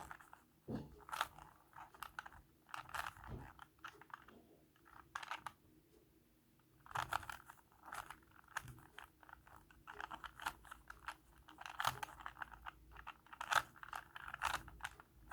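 Plastic Rubik's Cube layers being twisted by hand, clicking and clacking in quick runs of turns with short pauses between them.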